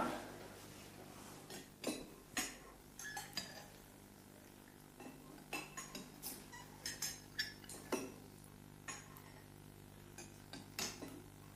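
Faint, irregular light clinks and taps of cutlery and crockery, a couple of short knocks every second or so.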